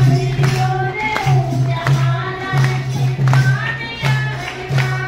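Music with singing: a melody over a low note that pulses on and off.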